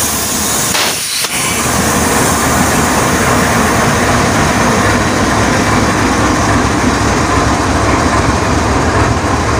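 GEU-40 diesel-electric locomotive standing with its engine idling, heard close up as a steady, loud rumble.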